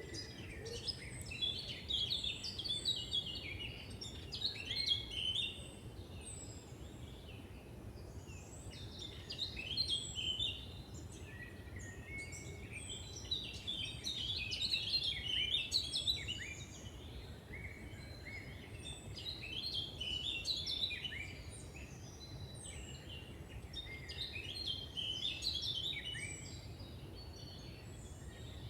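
Songbirds singing: bursts of quick, high chirping phrases come every few seconds over a steady low background rumble.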